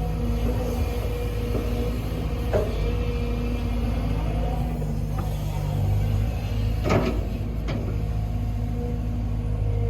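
Sumitomo SH210 hydraulic excavator's diesel engine running steadily, with a few sharp knocks: one about two and a half seconds in and two close together around seven seconds in.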